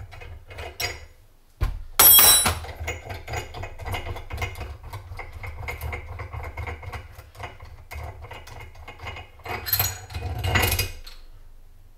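Metal tools clinking and rapid clicking as a wrench and socket tighten the nut on an Ironhead Sportster flywheel, snugging it down against its washer. A sharp metallic clank about two seconds in, and a louder stretch of clinks near the end.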